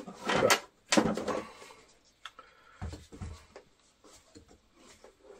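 Handling noise of the old model boat's parts: two short knocks and rattles in the first second and a half, a softer low bump near the middle, then faint scattered clicks.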